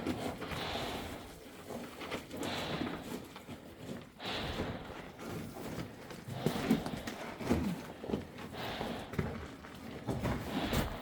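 Footsteps scuffing and crunching on loose rock, irregular and uneven, with occasional thumps.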